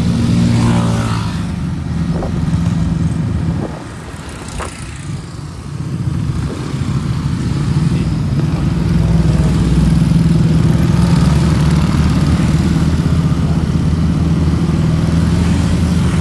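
Motor scooter engine running at riding speed with wind noise, a steady low drone. It goes quieter for a second or two about four seconds in, then runs steadily again.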